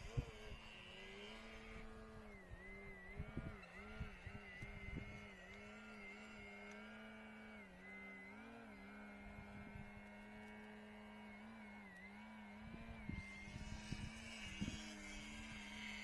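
Brushless electric motor and propeller of an RC glider running under power: a steady hum whose pitch wavers and dips slightly, with gusts of wind knocking on the microphone.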